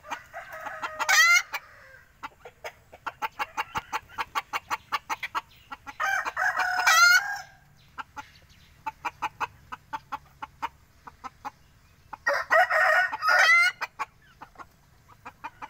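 Bantam rooster crowing three times, short high crows about six seconds apart. Between the crows, chickens cluck in rapid runs of quick pulses.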